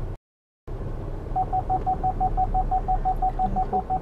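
Car parking sensors beeping rapidly, about six short same-pitched beeps a second, starting about a second and a half in, over a low engine and road hum: the warning that an obstacle is very close alongside. A brief cut to silence comes just before.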